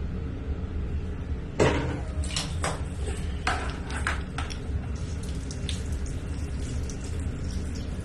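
Water from a handheld shower running and spattering onto a tiled floor, with a steady low hum underneath. A sharp splash comes about a second and a half in, followed by several more splashes over the next few seconds.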